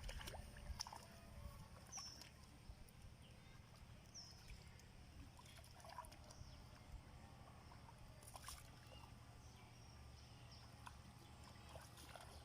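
Near silence: a faint low outdoor rumble with scattered small clicks and light water sounds, and two short high chirps about two and four seconds in.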